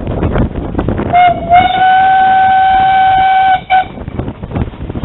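A 0-8-0 steam tank engine's whistle sounded from the cab: a short toot, then one long steady blast of about two seconds, then a brief final toot. The engine answers a 'P' whistle board, the signal to sound the whistle on approach. Wind on the microphone and the engine's running noise are heard before and after.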